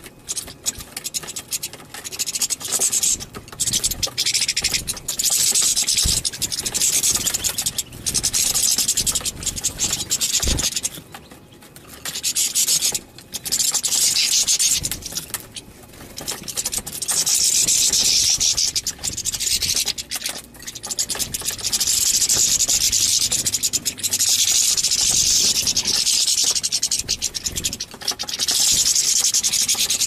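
A flock of European goldfinches twittering, a dense scratchy high chatter in bouts of a few seconds with brief pauses between them.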